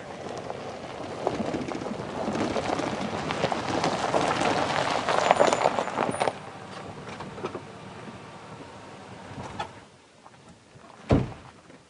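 Chevrolet Silverado pickup rolling up over gravel, tyres crunching and engine running, loudest just before it stops about six seconds in. The engine runs on more quietly until about ten seconds in, then a single heavy thump comes a second later.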